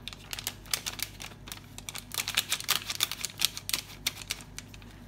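Plastic packet of fish curry powder crinkling and crackling as it is handled and opened, in quick irregular clicks that are busiest in the middle and die away about four seconds in.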